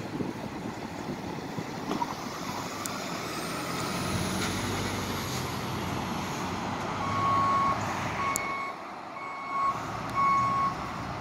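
Street traffic and vehicle engines running, then a large vehicle's backup alarm beeping four times, about a second apart, in the last few seconds.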